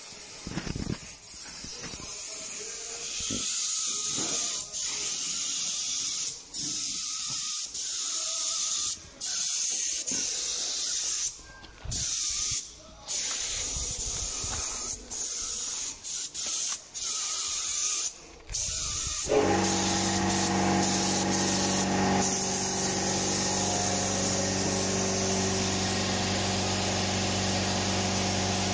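Spraying hiss in bursts, stopping and starting many times with short pauses. About two thirds of the way through, a steady machine hum with a pitched drone starts and runs under continuous spraying.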